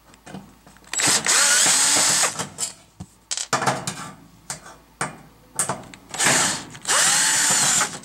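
Cordless drill-driver spinning in several short runs as it backs two screws out of the range's sheet-metal rear cover, its pitch rising and falling, with small clicks of handling in between.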